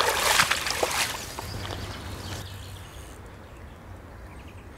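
Water splashing and dripping at the lake's edge as a mirror carp is released from a retaining sling and swims off, dying away about a second in to faint steady background noise.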